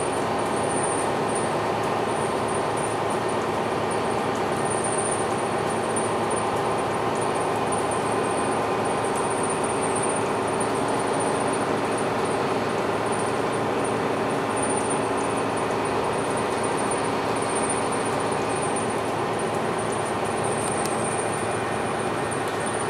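Cabin noise inside a MAN NL323F A22 single-deck city bus cruising at a very low, steady speed: the diesel engine hums evenly under a steady wash of tyre and road noise.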